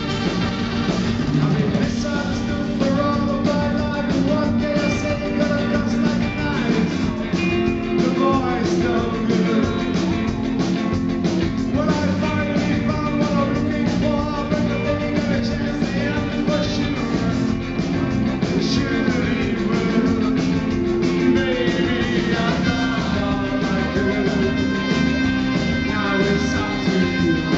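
Live rock band playing: electric guitars over a steady beat, with a male lead singer.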